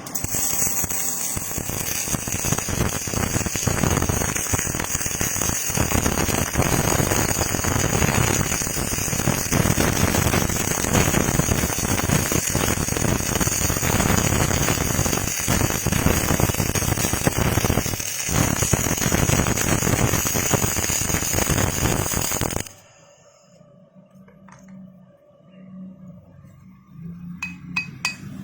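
MIG/CO2 welding arc from a Rilond 350-amp inverter welder, a dense, steady crackle that runs for about 22 seconds and stops abruptly. A few light metallic clinks come near the end.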